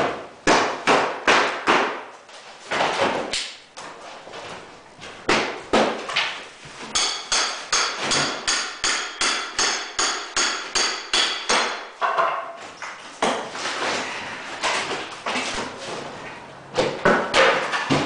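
Hand hammer striking over and over in demolition work, about three blows a second. For a few seconds in the middle each blow rings out with a metallic tone, then the blows turn softer for a while before picking up again near the end.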